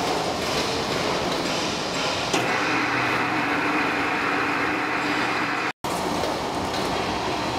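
Mechanical three-roller symmetrical plate rolling machine running under load, its gear-driven bottom rolls turning and bending a steel plate: a steady mechanical running noise. There is one sharp click about two seconds in, and the sound cuts out for a split second near the end.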